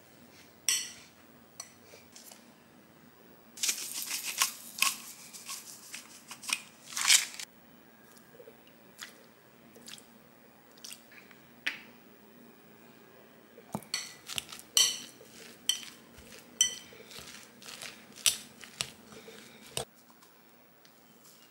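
A metal potato masher and a wooden spoon knocking and scraping against a glass mixing bowl as cooked sweet potato is mashed and stirred: scattered sharp clinks and bursts of scraping, densest about four to seven seconds in and again later.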